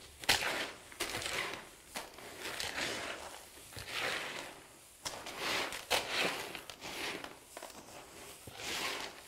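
Gritty bonsai substrate of pine bark, gravel and roof-tile shards being stirred and turned by hand with sphagnum moss mixed in: irregular rustling and crunching scrapes, with a few sharp clicks.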